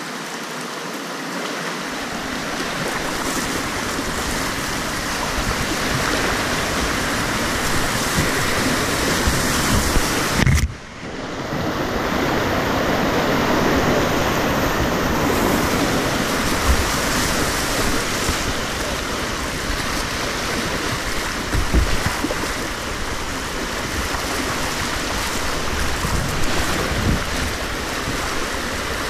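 River rapids rushing: a steady, loud wash of whitewater close to the microphone, with a few low thumps. The sound drops out briefly about ten seconds in.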